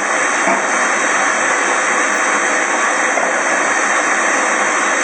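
Loud, steady rushing hiss from the kitchen, even and unbroken, loud enough that the cook has to shout over it.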